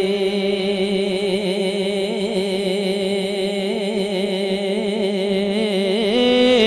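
A male naat reciter singing one long, drawn-out melismatic line with a wavering vibrato, the pitch stepping up near the end.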